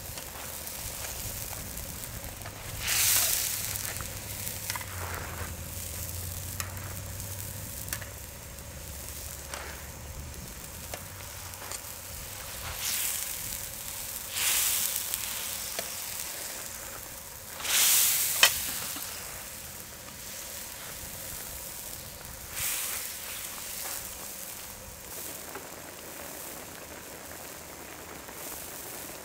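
Spicy broth with chicken legs boiling and sizzling in a wide cast-iron cauldron lid, a steady hiss, with about five brief louder rushes as metal tongs stir and turn the pieces in the pan.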